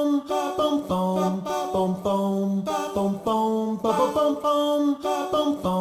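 Music: a melody of short held notes, each about half a second long, in a repeating pattern.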